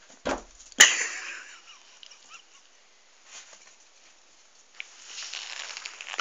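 A bull terrier at a mirror: a dull thump, then a sharp knock just under a second in, the dog striking the mirror or the tiled floor. About five seconds in a scratchy rustle begins.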